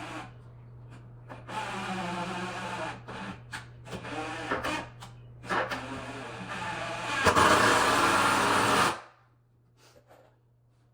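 A small electric power tool's motor running in several bursts, its pitch shifting from burst to burst. The last and loudest run stops suddenly about nine seconds in.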